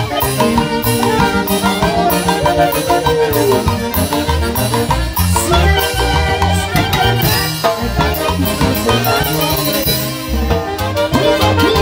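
Live Andean huayno orchestra playing: saxophones and trumpets carry the melody over a drum kit keeping a steady beat on snare, bass drum and cymbal, with a quick run of drum strokes near the end.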